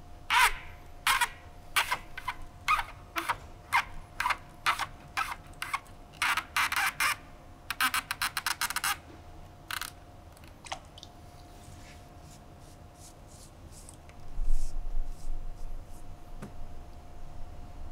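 Strands of rattan cane being pulled and pushed by hand through a woven cane chair seat: a run of crisp scraping ticks, about one or two a second, with a quick flurry about halfway, then fainter. A dull low bump comes near the end.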